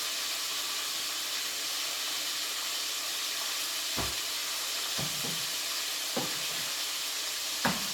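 Chicken strips frying in hot oil, a steady sizzle. A few light knocks of kitchen items being set down or handled are heard over it, four in all.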